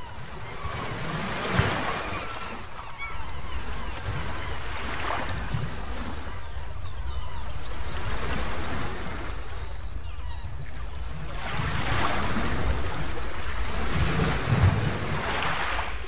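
Strong sea wind blowing over the microphone in gusts, rumbling and buffeting, with the surf of waves breaking on the beach underneath.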